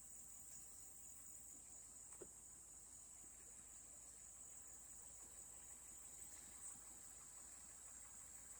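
Near silence: a faint, steady high-pitched hiss with a couple of faint ticks.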